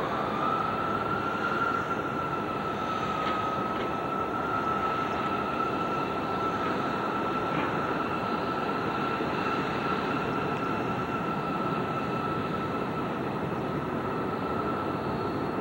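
Boeing 747-400F freighter's four jet engines on final approach: a steady rush of engine noise with a high fan whine that rises slightly in the first second and then holds steady. The sound comes through the low-quality audio of an old VHS-C camcorder.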